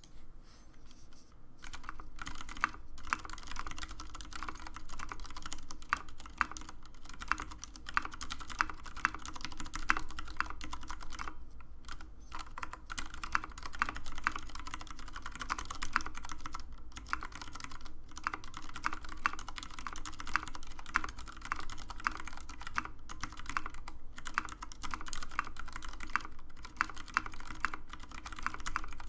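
Continuous typing on a TX75 custom mechanical keyboard with tactile Cherry MX Grey switches on a brass plate, with tactile Gateron Clear switches on the space bar and modifiers. Fast, irregular keystrokes start about a second and a half in and run on with a few brief pauses.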